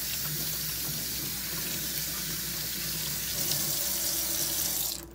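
Kitchen faucet running steadily into a stainless steel sink; the sound stops abruptly near the end.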